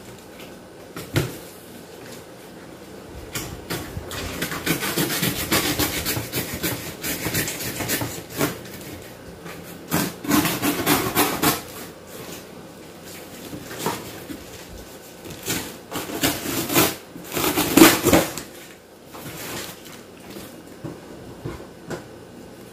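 A large cardboard box being opened by hand: the cardboard scrapes and rustles in several stretches, the loudest near the end, with a short knock about a second in.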